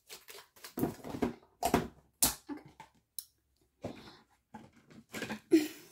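Handmade slime being scooped and pressed by hand into a plastic container: irregular short sticky, crackly handling noises and clicks.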